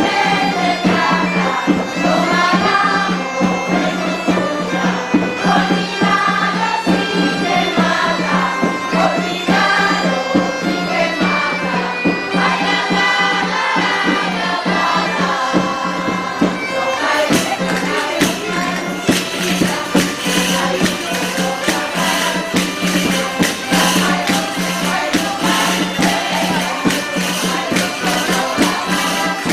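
Bagpipe music, in the style of a Galician gaita: a melody played over a steady low drone. About seventeen seconds in, fast, dense percussion strikes join in.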